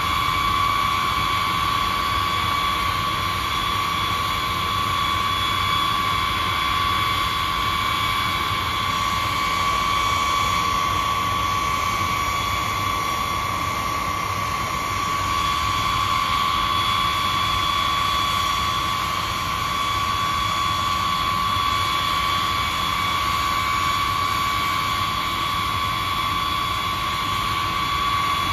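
B-52 bomber's eight Pratt & Whitney TF33 turbofan jet engines running steadily at low power, a constant high whine over a broad rumble.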